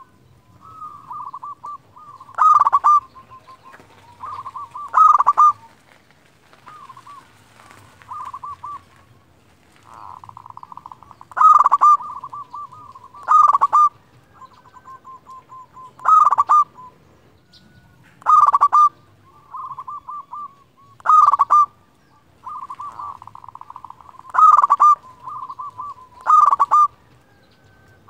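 Zebra dove (perkutut) singing its cooing song: a loud phrase about every two to three seconds, with softer runs of quick coos between them. This is the bird in full song, the kind used to call and rouse rival perkutut.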